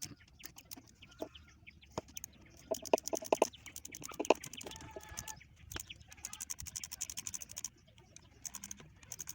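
Irregular sharp clicks and taps of hand tools as the starter's bolts are worked loose, louder knocks around the middle, with a chicken clucking in the background.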